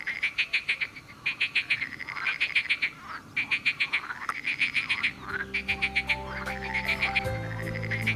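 Frogs calling in a chorus: rapid trains of high pulses, each lasting about a second, repeating with short gaps. Soft background music with held low notes comes in about halfway through.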